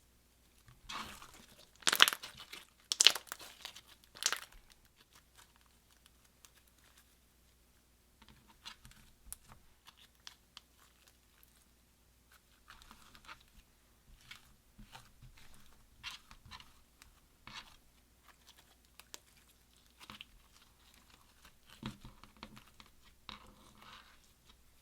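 Slime being worked by hand: several loud, sharp crackles about one to four seconds in, then softer scattered clicks and crackles after a short pause.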